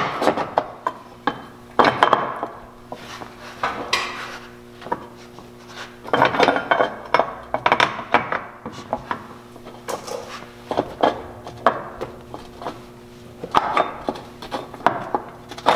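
Metal clinks, knocks and scrapes as a billet aluminium radius rod plate is worked by hand onto the rear radius rod studs and bolt ends of a Can-Am Maverick X3 to line it up. Irregular clusters of sharp taps come and go throughout.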